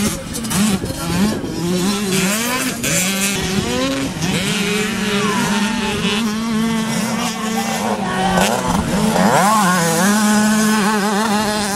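Several 65cc two-stroke motocross bikes revving hard, their engine pitch climbing and dropping again and again as they shift up, then holding high, with other bikes' engines rising and falling behind.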